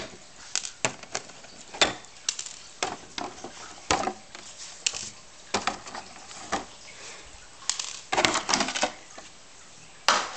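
Irregular clicks and light knocks of hard plastic and metal as a Traxxas T-Maxx 3.3 RC truck is handled and its body shell is taken off, with a quick run of knocks a little after eight seconds in.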